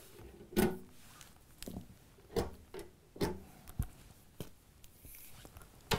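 Patch cables being unplugged from the jacks of a Behringer 2600 synthesizer: about eight short, sharp clicks at irregular intervals.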